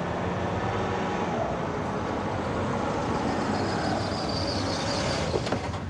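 Steady street traffic noise: motor vehicles running, with a faint rising whine about halfway through and a single click near the end.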